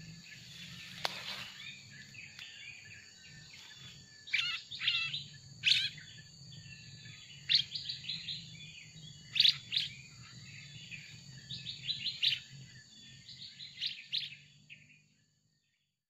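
Kutilang emas (a bulbul) lure song: short chirping phrases of quick up-and-down notes, repeated every second or two. Under it run a steady high whine and a low hum, and all of it cuts off suddenly near the end.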